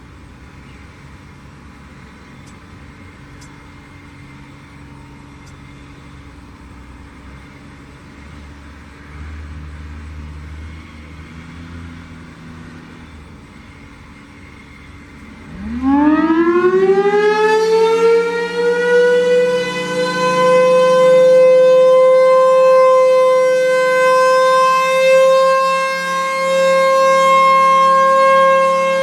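A Federal Signal Thunderbolt 1000A outdoor warning siren starts a little over halfway in, after a faint low background rumble. It winds up in a rising wail and settles into one steady, loud tone, the alert signal. Its loudness swells and dips slightly as the rotating head turns.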